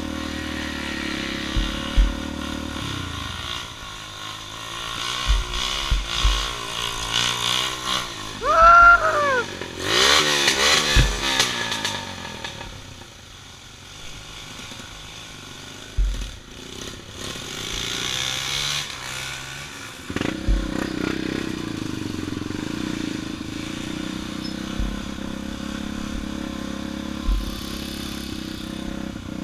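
Motorcycle engine running on a rough trail ride, its pitch rising and falling with the throttle, with occasional thumps and a louder clattering stretch about ten seconds in.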